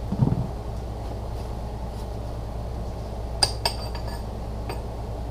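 Steel parts of a transfer case being handled: three sharp metallic clinks with a short ringing, about three and a half seconds in, a moment later and near the end, over a steady low hum.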